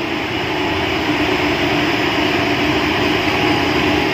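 Ship's electric emergency fire pump running: a loud, steady machine drone with a constant hum in the confined pump space.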